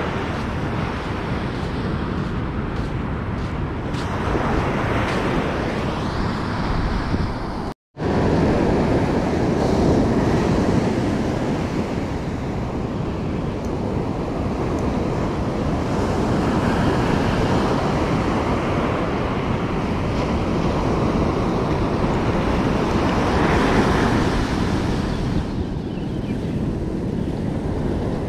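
Surf breaking and washing on a sandy beach, a steady rushing with swells in level, with wind buffeting the microphone. The sound cuts out completely for a moment about eight seconds in.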